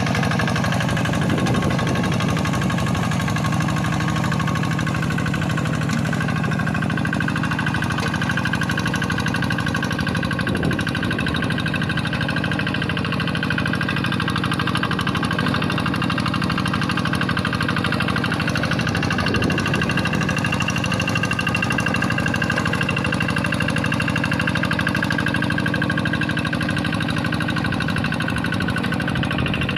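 Single-cylinder Kubota diesel engine of a Quick G1000 hand tractor running steadily under load while ploughing a rice paddy, with an even, rapid knocking beat.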